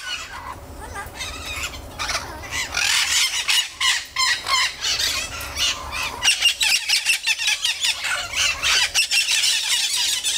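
A group of parrots squawking and screeching, many harsh calls overlapping without a break.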